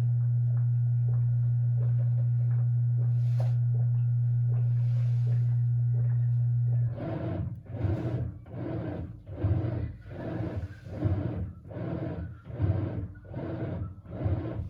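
Small washing machine: a steady low electric hum that cuts off about seven seconds in. It is followed by the rhythmic swish of the wash agitation, about one and a half strokes a second, as the motor drives the clothes back and forth in the water.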